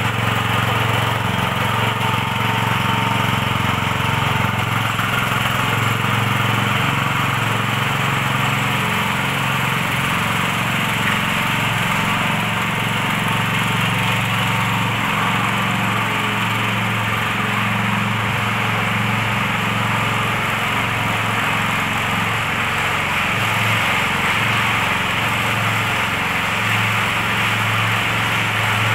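Walk-behind concrete power trowel with a small air-cooled petrol engine, running steadily at working speed as its spinning blades float a fresh concrete floor.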